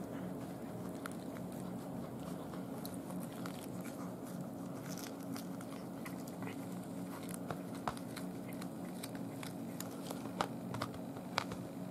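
A cat chewing and crunching through a whole raw day-old chick, with irregular sharp crunches that get stronger near the end, over a steady low hum.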